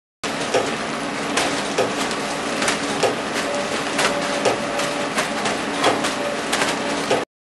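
Packing machinery for pork scratchings running, a steady mechanical clatter with frequent irregular clicks and knocks. A faint steady tone sounds through the middle, and the sound starts just after the beginning and cuts off abruptly near the end.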